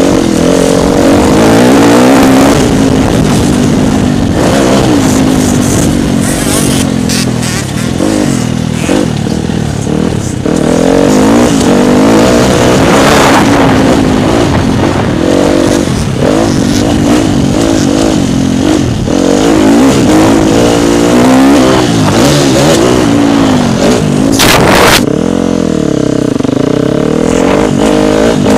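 Dirt bike engine heard from the bike itself, revving up and falling back over and over as the rider works the throttle and gears, with a noisy rush over it. A brief loud burst of noise comes about three-quarters of the way through.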